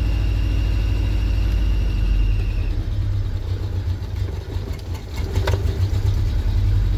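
Land Rover petrol engine running rough with a heavy misfire, unable to settle into an even tick-over; it sounds really sick, more like a tractor than a car. The engine note sags briefly about four and a half seconds in, and a thin steady high whine sounds for the first two and a half seconds.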